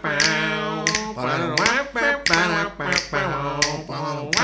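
Music: a voice singing long held, sliding notes, with sharp finger snaps now and then.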